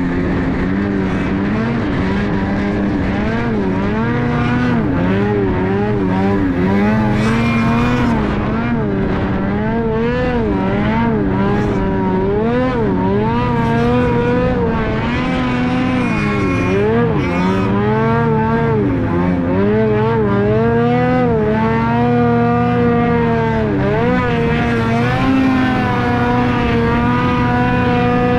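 Ski-Doo 850 two-stroke snowmobile engine working hard in deep powder, its pitch constantly rising and falling as the throttle is worked on the climb.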